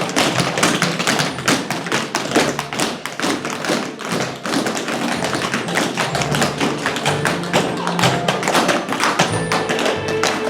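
Tap shoes striking the floor in quick, dense rhythms of sharp clicks and heavier thuds, with music playing underneath.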